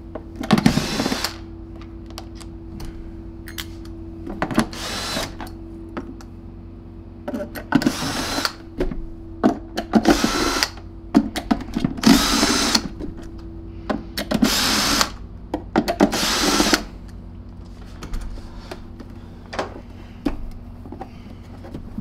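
Hitachi cordless drill-driver backing out screws from a plastic vacuum housing in about seven short runs of under a second each. Small clicks of screws and plastic being handled come between the runs.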